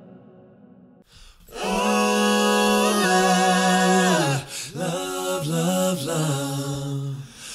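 A cappella singing from a voice-memo recording. After a faint fading tail and a short gap, long held sung notes begin about a second and a half in. They step in pitch, with a brief break a little past halfway and another near the end.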